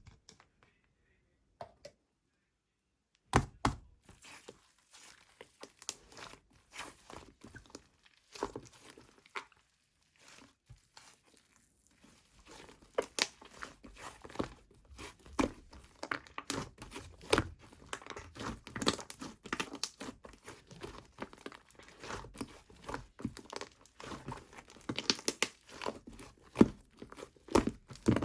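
Two-layer clay slime being stretched, squeezed and poked by hand, making dense crackling and popping clicks. It starts a few seconds in and grows busier from about halfway.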